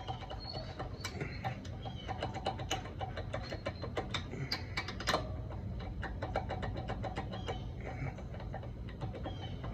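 Ratchet wrench clicking in quick runs as it is worked, with a sharper metal knock about five seconds in.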